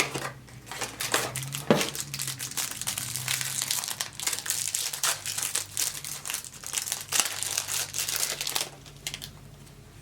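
Plastic wrapping of a trading card pack crinkling and crackling as it is handled and opened, dense and continuous, stopping about nine seconds in.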